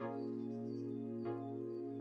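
Background music: slow, sustained chords.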